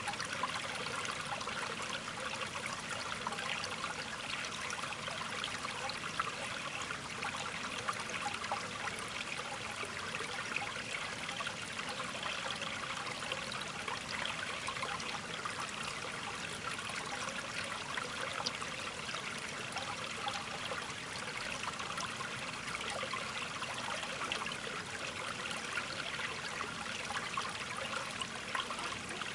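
Steady trickling, running water, even and unbroken throughout.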